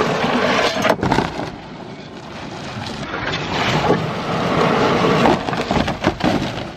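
Old asphalt shingles being scraped and pried off wooden roof boards with a long-handled shovel: continuous crackling, tearing and scraping, with a few sharp cracks.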